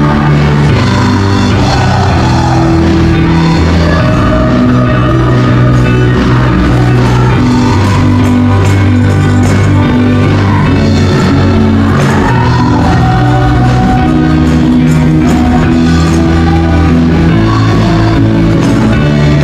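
Loud praise-and-worship band music, with a group of voices singing along.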